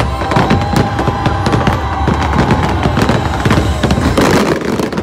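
Fireworks going off in a rapid, dense volley of bangs and crackles, with a loud burst of crackling about four seconds in, over the show's music soundtrack.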